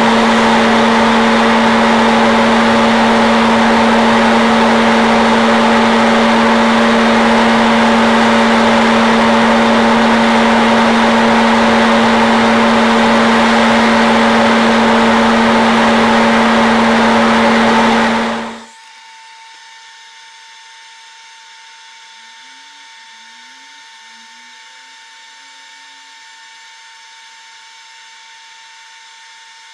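Hot-air popcorn popper running steadily with green coffee beans in its roasting chamber, its fan giving a loud whir over a steady hum. About 18 seconds in the sound cuts off abruptly, leaving only a faint steady hum.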